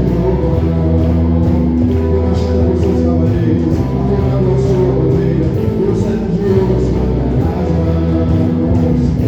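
Worship band music with sustained chords and a steady beat.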